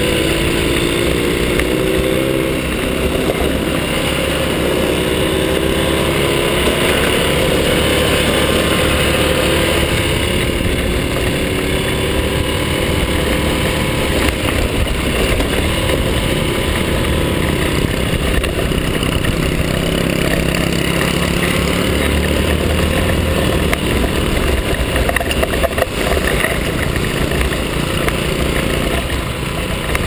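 Small motorcycle engine running as it is ridden, its pitch rising and falling with the throttle during the first ten seconds or so, over a steady rushing noise.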